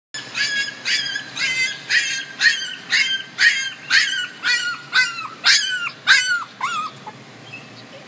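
Very young puppy crying, a run of short high-pitched yelps about two a second, each one dropping in pitch, fading out near the end.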